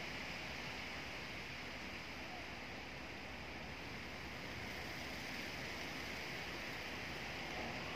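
Wind blowing through tree leaves, a steady rustling hiss.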